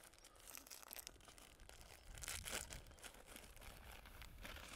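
Faint crinkling and rustling of foil groundbait bags being handled and emptied, dry groundbait pouring into a plastic bucket.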